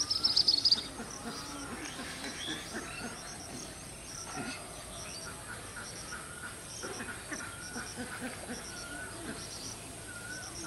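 Birds calling around a village pond: a loud shrill call in the first second, then repeated short high chirps in small groups and wavering calls throughout.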